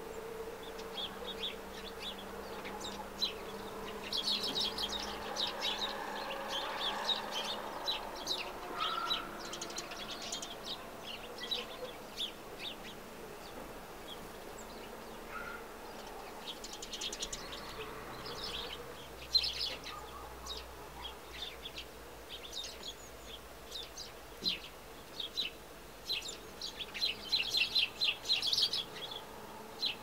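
Sparrows chirping in bouts of quick, short chirps, busiest near the end.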